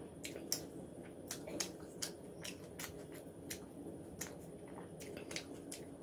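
Close-up chewing with the mouth closed: soft, wet mouth clicks, irregular, several a second.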